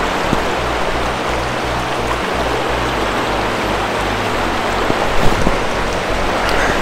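River water rushing, a steady loud hiss of flowing current.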